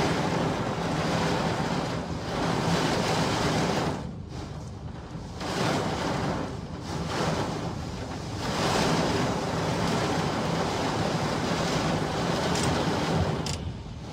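Heavy rain and road water heard from inside a car: a steady rushing noise of rain on the glass and spray from wet tyres, dropping away briefly about four seconds in and again near the end.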